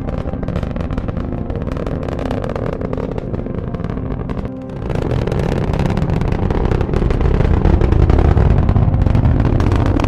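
Rocket engine sound effect: a loud, steady rumbling noise that starts abruptly, dips briefly about four and a half seconds in, then comes back louder, with faint background music underneath.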